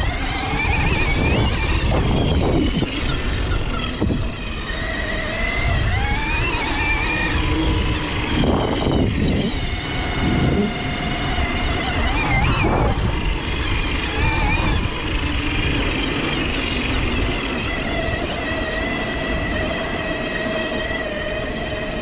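Bafang BBS-HD mid-drive e-bike motor whining under power while riding, its pitch rising and falling with speed and throttle, then holding steadier near the end, over a steady low rush.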